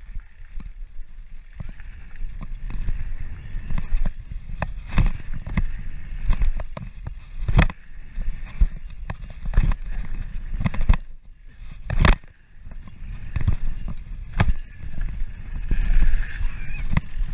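Mountain bike ridden fast over dirt jumps: tyres rumbling on packed dirt, wind on the microphone, and the chain and frame rattling with sharp knocks. About two-thirds of the way through, a brief quiet spell while the wheels are off the ground ends in one loud landing knock.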